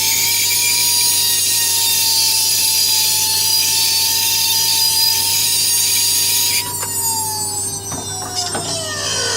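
Turbocharger spinning at speed with a steady high whine and a loud rushing hiss. The hiss cuts off suddenly about two thirds of the way through, and the whine then winds down, falling in pitch as the turbine coasts to a stop.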